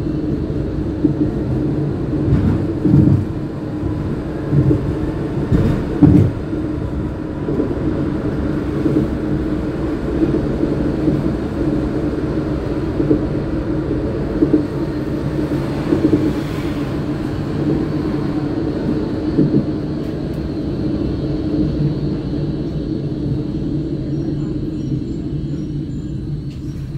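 MVB NGT8D low-floor articulated tram running, a steady rumble with a constant hum, and two louder thumps about three and six seconds in.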